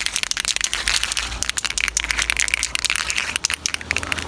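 Aerosol spray paint can spraying: a steady, dense hiss with fine crackling running through it.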